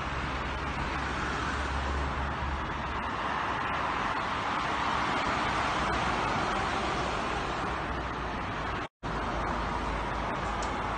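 Road traffic on a multi-lane highway: a steady hiss of tyres and engines from passing cars, swelling a little about halfway through. The sound cuts out for a moment about nine seconds in, then similar steady noise resumes.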